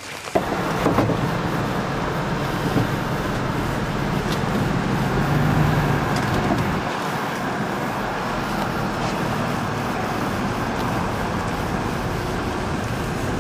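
A car driving: steady road and engine noise.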